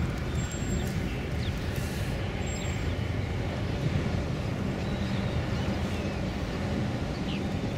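Steady low diesel rumble from a container ship and its escorting tugboat under way.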